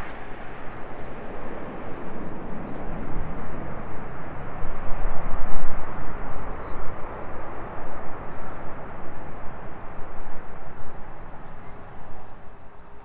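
Jet airliner's engines on the landing roll just after touchdown: a rushing roar that swells to its loudest about five seconds in and then slowly fades as the aircraft slows, the rise and fall of reverse thrust.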